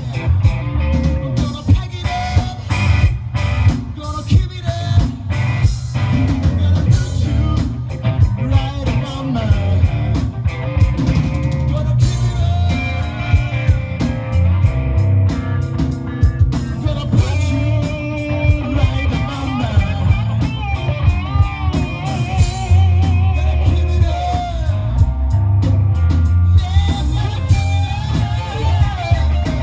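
Live rock band playing loud through amplifiers: distorted electric guitars, bass guitar and a full drum kit.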